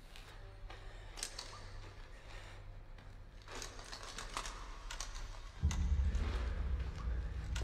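Quiet, irregular clicks and scuffs of footsteps and gear on a rocky cave floor. About five and a half seconds in, a loud low drone from the film's score starts suddenly and holds.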